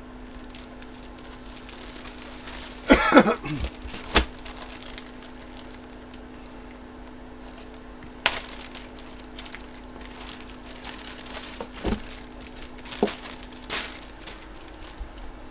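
Scattered crinkles, clicks and light knocks of packaging and items being handled, over a steady low hum that stops near the end.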